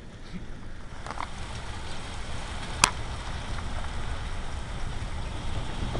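Thunder rumbling and slowly building in loudness after a close lightning strike, over steady rain, with a single sharp click about three seconds in.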